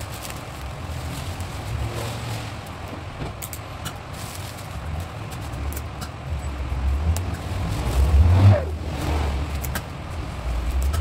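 Clear plastic gift bag rustling and crinkling as it is handled around a wooden crate basket, over a low steady rumble. About eight seconds in, tape is pulled off a desk tape dispenser with a short squeal.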